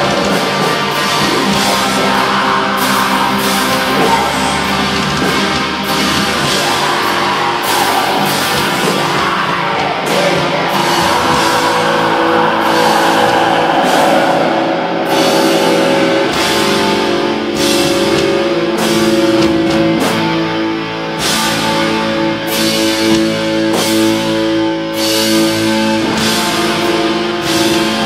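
Heavy metal band playing live through the club PA: distorted electric guitars, keyboards and a drum kit with frequent cymbal hits. Long held notes ring out over the drums in the second half.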